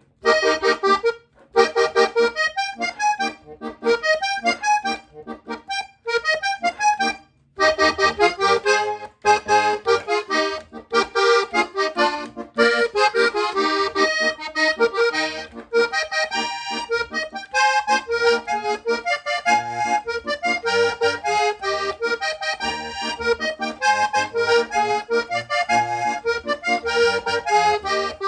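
Hohner Corona II Compadre button accordion, two reeds per button, playing a vallenato: a few separate short phrases at first, then from about seven seconds in a continuous melody with chords and bass.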